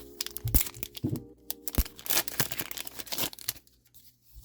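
Foil wrapper of a One Piece Card Game booster pack being torn open and crinkled: a dense run of crackles lasting about three and a half seconds, then stopping.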